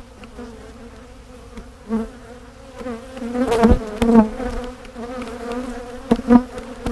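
Honeybees of a defensive colony buzzing around the open hive: a steady hum with single bees passing close, their pitch rising and falling. Several sharp knocks stand out halfway through and again near the end.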